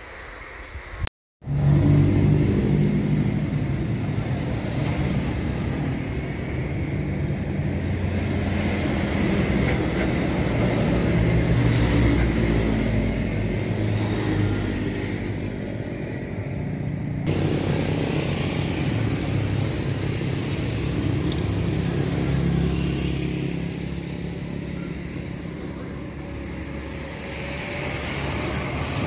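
Airbus A321's IAE V2500 jet engines running with a loud, steady rumble as the airliner rolls along the runway for takeoff. The sound starts abruptly about a second in and changes in tone suddenly partway through.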